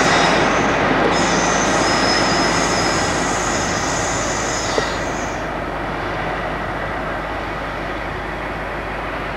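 British Rail Class 58 diesel-electric locomotive running as it pulls away, its engine noise easing off slightly as it recedes. A high-pitched wheel squeal rises over it from about a second in and stops about halfway through.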